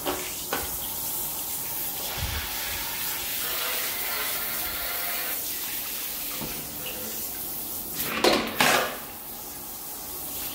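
Shower water running steadily into a freshly snaked channel drain, left on to test whether the drain still backs up. Two louder sudden sounds come about eight seconds in, after which the water runs a little quieter.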